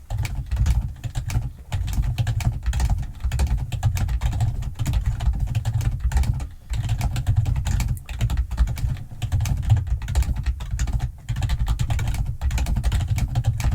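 Rapid, continuous typing on a computer keyboard, a dense run of key clicks with a few brief pauses.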